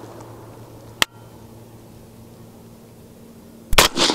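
A suppressed 6.5 Grendel AR-15 fires a single shot near the end, its report rolling away in a long fading echo. A single sharp click sounds about a second in.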